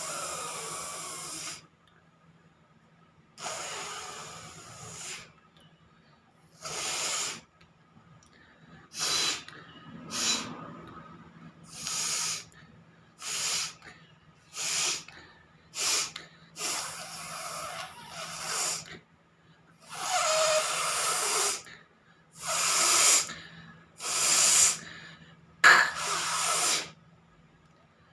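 A woman blowing hard through her nose again and again, trying to force mucus out, in about fifteen separate blasts. Some blasts are short and sharp, others are held for a second or two, and short pauses fall between them.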